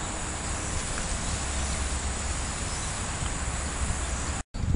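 Steady high-pitched drone of tropical insects over a low rumble. The sound cuts off suddenly near the end.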